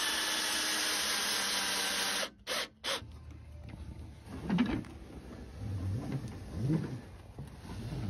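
Cordless drill driving a screw into a wooden frame, running steadily for about two seconds and then cutting off. After a pause, quieter handling with two short rising-and-falling whining sounds, the first of them the loudest moment.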